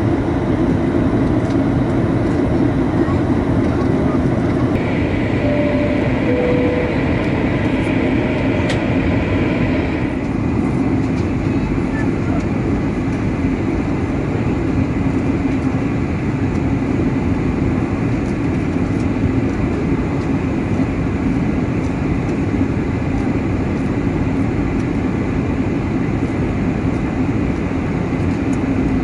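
Steady rushing airflow and engine noise inside a Boeing 737-800 in flight on the approach. About six seconds in, a two-note high-low chime sounds.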